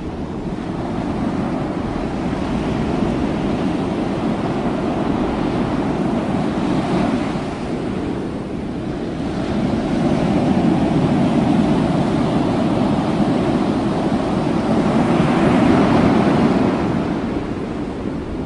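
Ocean surf: waves rushing and breaking, with wind buffeting the microphone. It swells briefly about seven seconds in, then grows louder from about ten seconds and peaks near the end.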